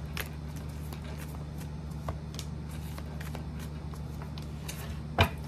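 A deck of tarot cards being shuffled by hand, giving a run of soft card flicks and slaps, with a louder tap near the end. A steady low hum sits underneath.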